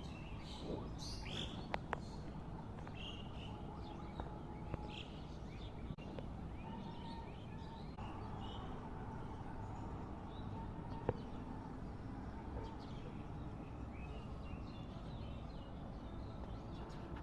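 Birds chirping in scattered short calls over a steady low background rumble, with a few sharp clicks.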